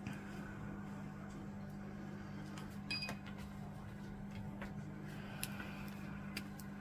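Faint clicks and a small clink of painting tools and a marker being handled on the table, over a steady low hum.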